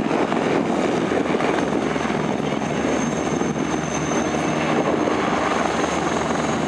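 Eurocopter Tiger twin-turboshaft attack helicopter flying low past: a fast chop of rotor blades over a dense engine rumble, with a steady high turbine whine that is loudest about three to four seconds in.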